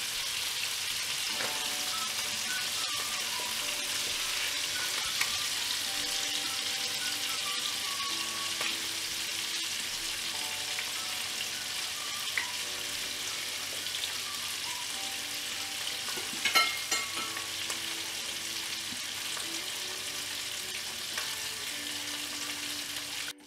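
Spice-coated sardines shallow-frying in hot oil in a pan: a steady sizzle, the fish frying on their second side after being turned. A brief clatter about two-thirds of the way through.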